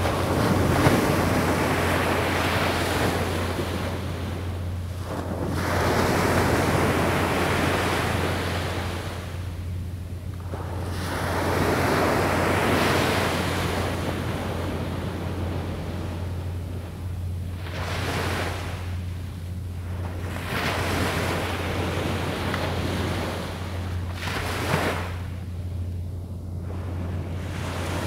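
Surf breaking on a beach: waves surge in and wash back, swelling and fading every few seconds.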